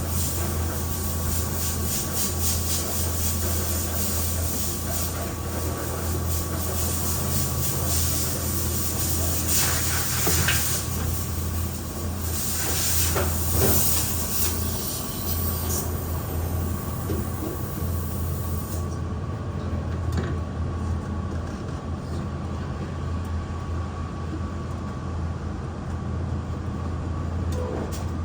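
Steady low mechanical hum with hiss, with a few scrapes and clatters in the middle; the high hiss cuts out abruptly about two-thirds of the way through.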